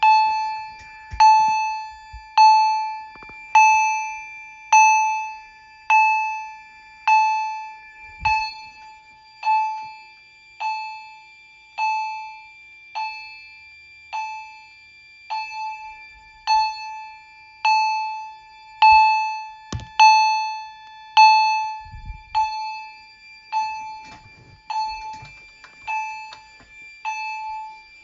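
Edwards Integrity chime strobe sounding in alarm: its chime strikes a single bright ding about once every 1.2 seconds, each strike ringing out and fading before the next. A faint steady high tone runs underneath.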